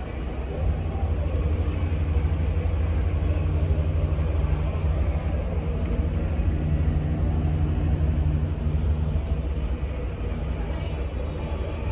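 Low, steady rumble of a cruise ship under way, strongest in the deep bass, swelling about a second in and then holding.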